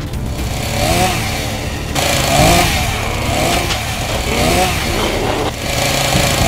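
Chainsaw engine revving up and down over and over.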